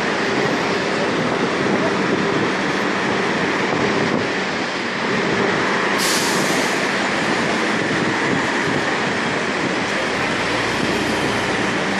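Street traffic: a steady wash of passing vehicles and buses, with a sudden sharp hiss about six seconds in that fades over about a second.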